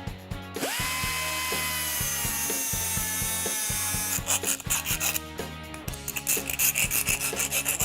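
A small rotary power tool spins up with a quick rising whine and cuts the door handle's latch pin down to size, its pitch sagging slightly under the load; about four seconds in it stops and a rapid run of rasping hand-file strokes on the cut pin follows. Faint background music runs underneath.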